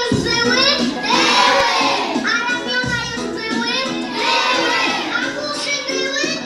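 A group of young children singing a dance song loudly in short phrases, with music behind them.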